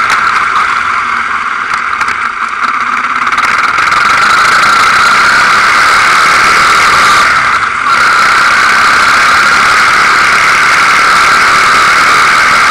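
Quad bike engine running steadily while riding along a dirt track, loud on the onboard microphone. It eases off briefly about two seconds in and again just before the middle.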